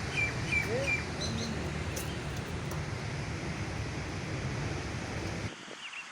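Birds chirping in short high calls, four in quick succession in the first second and a few more later, over a steady low background noise that stops abruptly near the end.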